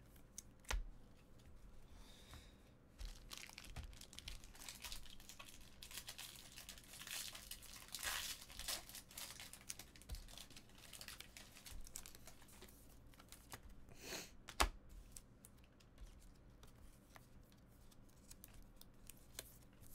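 Faint tearing and crinkling of trading-card pack wrappers being opened and handled, in irregular scratches and clicks, with a short louder crackle about 14 seconds in.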